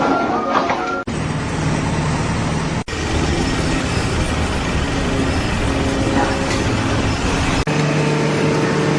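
Motor-vehicle engine and traffic noise, a steady hum under a noisy wash, broken by abrupt cuts about one, three and seven and a half seconds in.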